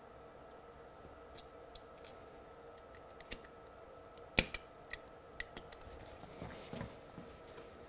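Small pliers clicking against the little metal tabs of a model railway point as they are bent back: scattered faint clicks, with one sharp click about four and a half seconds in, then a brief rustle of hands moving over the track.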